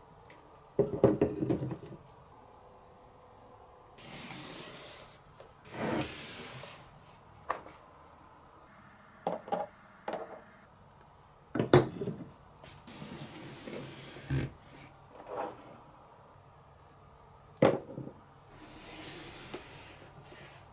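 Marbles clattering and rolling along a wooden HABA marble-run track: scattered sharp clicks and knocks, with several clusters of louder clacks and short stretches of steady rolling noise between them.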